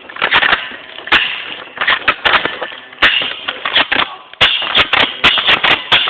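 Airsoft guns firing: a string of sharp, irregular pops, coming faster in a quick run of shots from about four and a half seconds in.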